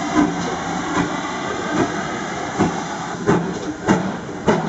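GWR 'Modified Hall' two-cylinder 4-6-0 steam locomotive No. 7903 Foremarke Hall pulling away: exhaust beats that slowly quicken as it gathers speed, over a steady hiss of steam.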